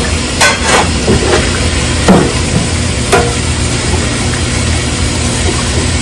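Tap water running into a stainless steel sink while a wok is scrubbed and handled in it, with a few clanks and scrapes of the wok against the sink in the first three seconds or so. A steady low hum runs underneath.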